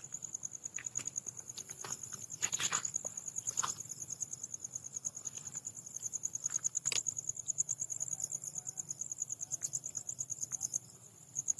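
Crickets chirping in a high, fast, even pulse that breaks off for about half a second near the end, with a few faint clicks.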